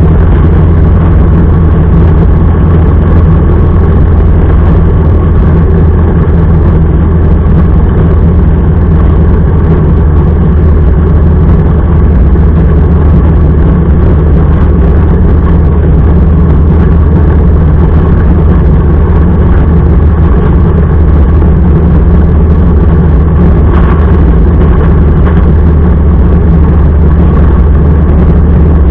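Motorcycle engine running steadily while riding, with no change in pitch, under a steady rush of wind and road noise.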